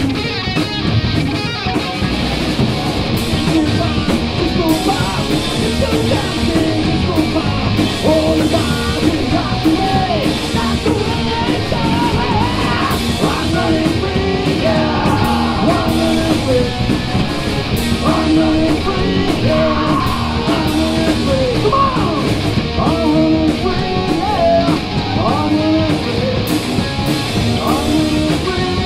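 Live metal band playing: distorted electric guitars, bass guitar and a drum kit, with the guitarist singing lead vocals.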